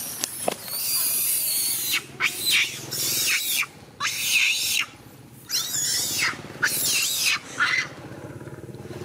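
Female long-tailed macaque screaming in fear, a rapid series of about seven or eight harsh screams each under a second, while carrying her newborn: a distress reaction to a bigger male threatening her and her baby.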